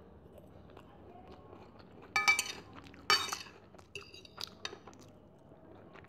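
Metal fork clinking and scraping on a ceramic plate: two loud ringing strokes about a second apart, then a few lighter clinks.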